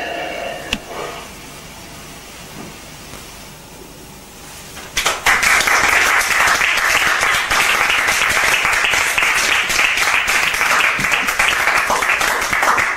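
A stage piece's music dies away, then about five seconds in a theatre audience breaks into applause, many hands clapping steadily.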